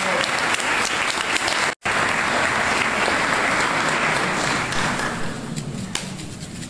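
Congregation applauding, a dense patter of many hands clapping. It cuts out for an instant about two seconds in, then dies down over the last couple of seconds.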